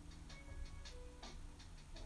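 Quiet background music: a laid-back beat of crisp, ticking hi-hat strokes over a low bass line and a few held notes.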